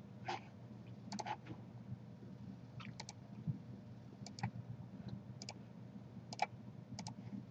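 Computer mouse clicking every second or so, several clicks in quick pairs, over a faint steady low hum.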